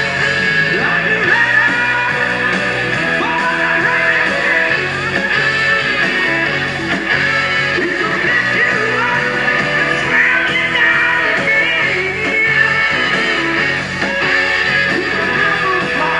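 Rock band playing live, with electric guitar and a lead singer over the full band.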